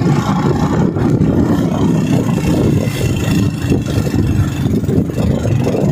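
Vehicle on the move: steady engine and road rumble, loud and low.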